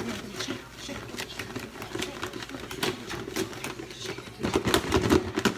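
Kitchen utensils clattering and scraping against cookware: a rapid, uneven run of clicks and taps, busiest for about a second near the end.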